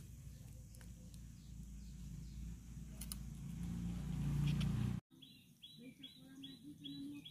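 A low rumble that grows louder over about five seconds, with a few faint clicks. After an abrupt cut, a bird calls repeatedly in short rising chirps, about two a second.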